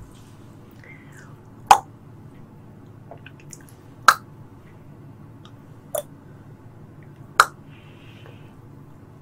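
Close-miked eating and drinking mouth sounds: four sharp, wet mouth clicks about two seconds apart, over a faint steady background hum.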